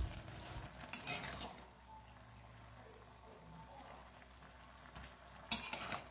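Metal spatula stirring spinach and mixed vegetables in a metal pan of steaming vegetables, with two short scraping bursts, one about a second in and one near the end.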